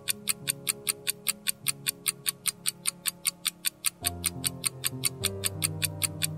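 Quick, even ticking of a countdown-timer sound effect, about five ticks a second, over background music. The music moves to a new, deeper chord about four seconds in.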